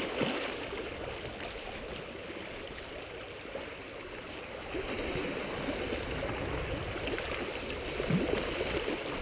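Sea water lapping and sloshing against shoreline rocks, a steady wash with small surges, one a little louder about eight seconds in.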